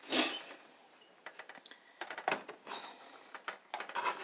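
Quiet kitchen handling at a nonstick skillet holding a quesadilla: a short scrape at the start, then scattered small clicks and taps as the plastic spatula is set aside and a hand presses the tortilla.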